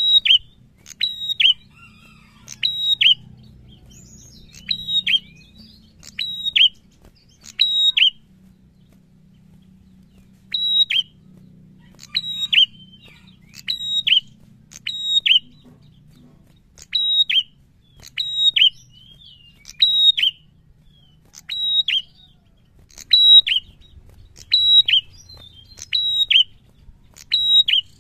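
Caged tailorbird (prenjak) calling over and over: sharp, high chirps, mostly in quick pairs, about once a second, with one pause of about two seconds a third of the way through.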